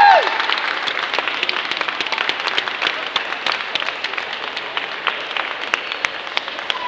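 Audience clapping steadily, with a brief high-pitched call right at the start.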